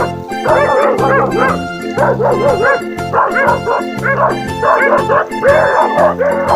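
Dogs yipping and whimpering in many short, quick, rising-and-falling calls over background music with a steady beat.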